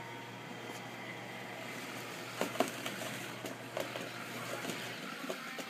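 Small electric motors and gearboxes of radio-controlled toy skid-steer loaders whirring steadily, with a few sharp plastic clacks, two close together about halfway through and one at the end.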